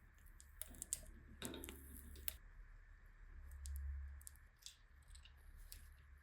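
Faint, scattered sharp clicks and short handling noises, with a brief low rumble about three and a half seconds in, over a steady low hum.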